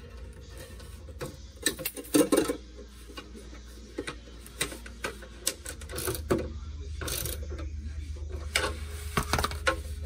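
Irregular metal clicks and clinks as galvanized steel pipe strapping and its bolt hardware are handled and a socket ratchet tightens the strap's nut. The loudest cluster of knocks comes about two seconds in.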